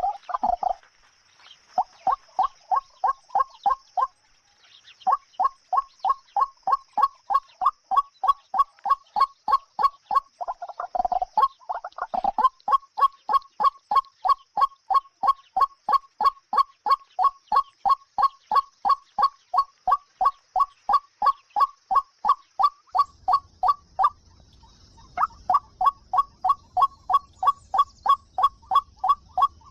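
A bird calling: a fast, steady series of short, clipped notes, about three to four a second, broken by two brief pauses.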